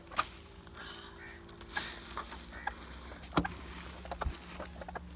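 Hand digging: a spade blade chopping and scraping into packed soil and silage waste, three main hits roughly a second and a half apart with smaller scrapes between, over a steady low hum.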